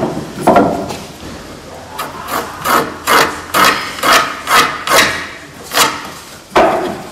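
Rhythmic back-and-forth strokes of a hand tool on wood, a rubbing, rasping sound: a run of about ten strokes, two or three a second, starting about two seconds in.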